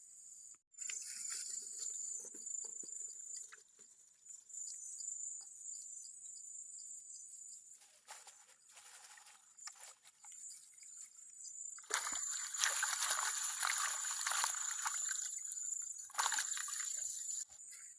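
Water sloshing and trickling, loudest in a noisy spell of about five seconds in the second half, over a steady high-pitched tone.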